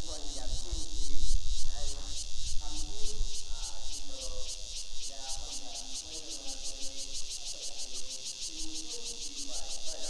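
Insects chirring in a steady, high-pitched run of rapid even pulses, over indistinct voices of people talking in the background.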